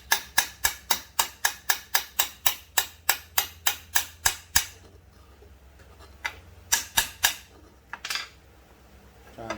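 Rapid light metal-on-metal tapping, about three or four strikes a second for some five seconds, then a few scattered taps: a tool struck repeatedly on a chainsaw crankcase to drive out a stuck locating pin.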